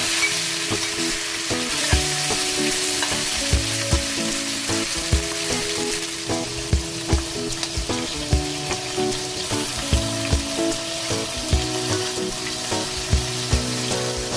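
Stir-fry ingredients sizzling in a hot pan as they are stirred, a dense steady hiss, over background music.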